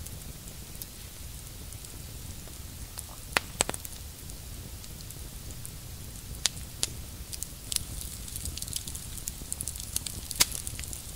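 Campfire crackling, with a scatter of sharp pops from the burning wood.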